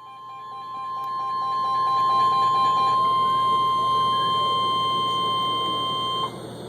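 NOAA Weather Radio 1050 Hz warning alarm tone, the single-pitch steady beep that signals a severe thunderstorm warning is coming. It swells over the first two seconds, holds, and cuts off sharply about six seconds in, leaving radio hiss.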